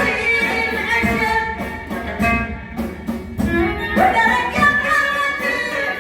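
Moroccan aita folk music: a violin melody over a hand-drum rhythm, with singing.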